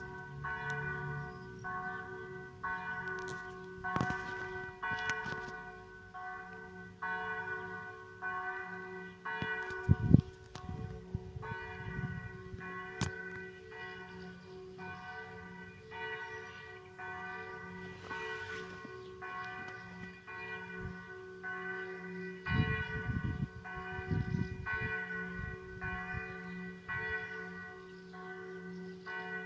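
Church bell ringing steadily, struck about every two-thirds of a second, each stroke ringing on over a sustained hum. A few low thuds come through about a third of the way in and again about three quarters of the way in.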